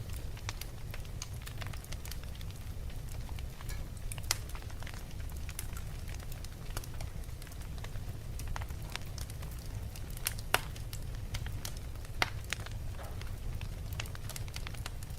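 Wood fire burning in a fireplace: a steady low rumble of flames with constant irregular crackling and a few sharper, louder pops.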